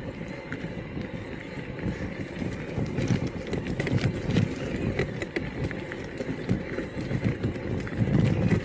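Electric mountain bike ridden over a rough mountain track: steady tyre rumble with many small clicks and rattles from the bike.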